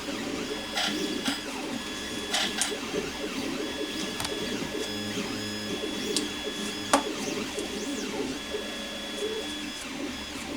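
A small machine running steadily with a whir, with scattered clicks and knocks over it, one sharp knock about seven seconds in.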